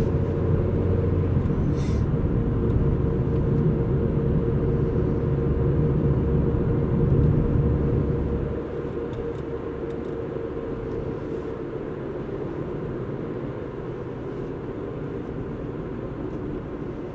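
Car on the move: steady engine hum and low road rumble, which eases off and gets quieter about eight and a half seconds in.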